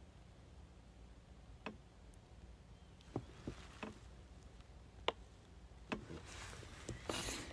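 Faint scattered clicks and taps, about six of them spread over several seconds, followed by a soft rustling near the end.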